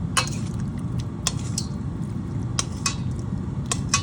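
A stirring utensil scraping and clinking against a pot of chicken soup, with about seven irregular knocks, over a steady low hum.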